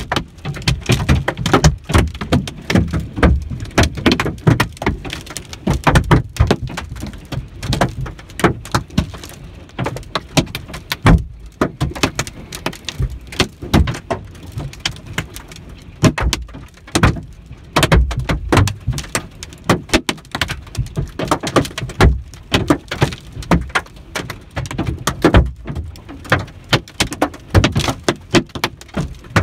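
Hailstones hitting a vehicle's windshield and body, heard from inside: a dense, irregular clatter of impacts that thins briefly about eleven seconds in.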